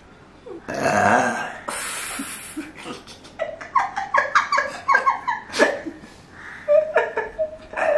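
A man laughing in a run of short, broken bursts through the middle, after two breathy, hissing bursts about a second and two seconds in. Near the end comes a steady held tone, a voice humming with the mouth closed.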